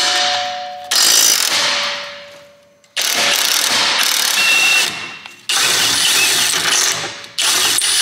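Maximum 20-volt cordless impact wrench hammering an 18 mm suspension bolt loose, in repeated loud bursts of one to two seconds with short pauses between them.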